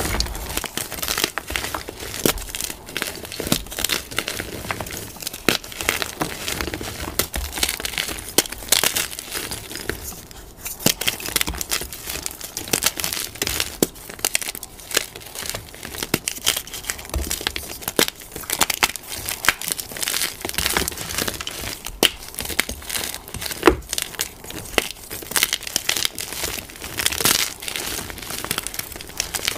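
Blocks of plain gym chalk crushed and crumbled in bare hands: a dense run of crunching and crackling, with louder snaps where pieces break, as the chalk falls apart into crumbs and powder.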